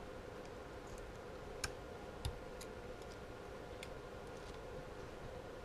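A few small, sharp clicks and taps as a bearing is worked out of a Traxxas Slash's wheel carrier with small hand tools, the loudest two about a second and a half and two seconds in. They sit over a faint steady hum.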